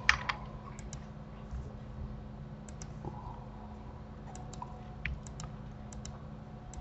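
Clicks of a computer keyboard and mouse at a desk, scattered singly and in quick pairs, the loudest right at the start, over a low steady hum.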